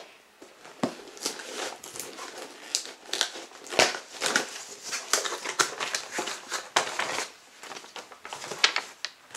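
Box and packaging being unpacked by hand: irregular crinkling and rustling with scattered sharp clicks and taps.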